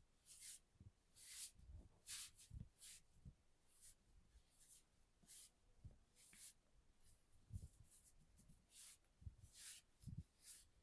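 Faint, irregular swishes of hands rubbing and stroking over the body during a massage, roughly one a second, with soft low thuds among them.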